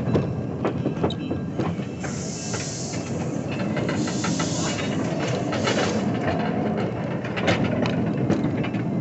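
A small train rolling slowly along the track, heard from aboard: a steady rumble with scattered clicks and knocks of the wheels over the rail joints. Bursts of hissing come about two seconds in, again about four seconds in, and briefly near six seconds.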